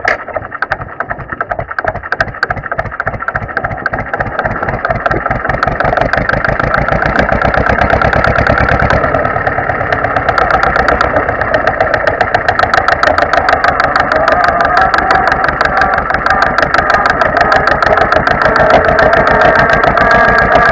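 Zetor 25 tractor's two-cylinder diesel engine running as the tractor drives along, with distinct exhaust beats. The beats come slowly at first, then quicken and grow louder over the first several seconds as the engine picks up speed, and after that the engine runs steadily.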